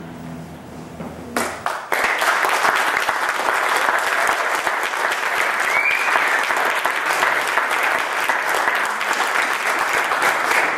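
An audience claps steadily, starting about two seconds in just as the backing music cuts off.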